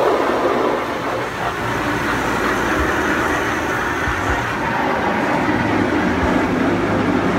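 Automatic car wash heard from inside the car: water and foam spraying against the windshield and body in a steady rushing wash, over the low hum of the wash machinery, with a few dull thumps.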